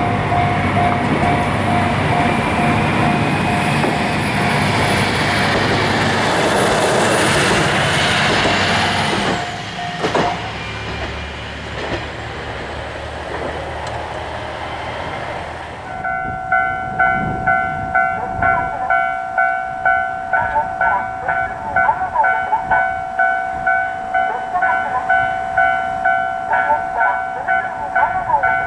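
A Matsuura Railway diesel railcar passes over a level crossing, a loud rush of engine and wheels that dies down after about nine seconds. Just past halfway the crossing's electronic warning bell starts ringing its repeated kan-kan, about two strikes a second.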